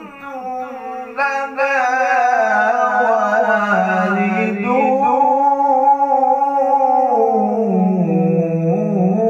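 A man reciting the Quran in the melodic tajweed style: one long drawn-out phrase with ornamented turns in pitch and a short break about a second in, settling lower in the last couple of seconds.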